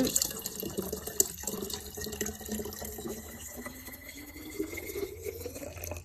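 Liquid poured from a pitcher into a narrow-necked glass jug, splashing steadily, with a faint tone that rises slowly as the jug fills.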